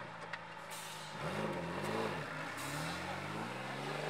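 Off-road jeep engine revving under load on a dirt climb: two quick rises and falls of the revs about a second in, then the revs climb again and hold toward the end.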